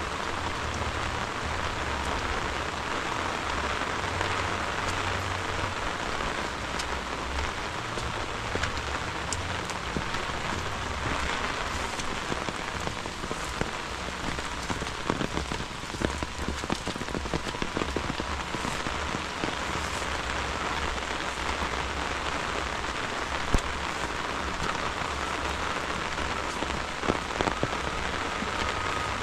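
Heavy rain falling steadily on rice paddies and vegetation: an even hiss of rain with scattered sharper drop ticks, one louder tap about two-thirds of the way through.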